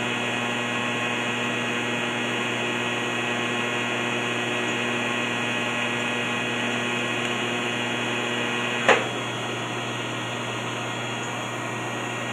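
TIG welding arc buzzing steadily. About nine seconds in there is a single sharp crack, and the buzz drops to a lower, steady machine hum.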